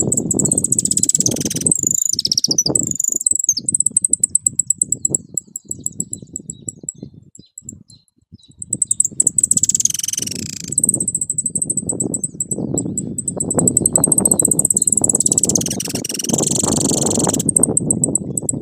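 Caged saffron finch singing in three bursts of sweeping, twittering song about six seconds apart, over loud wind rumble on the microphone. A thin steady high buzz runs underneath.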